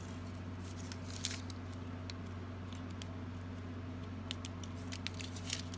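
Paper liner of a roll of glue dots being pulled and unrolled by hand, giving a few soft rustles and light clicks, over a steady electrical hum.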